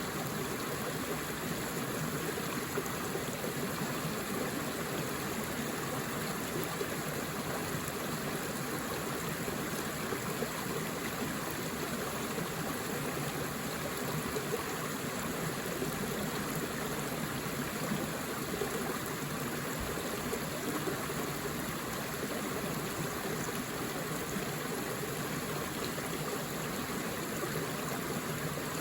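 A forest river flowing steadily over rocks, a constant rushing and trickling of water.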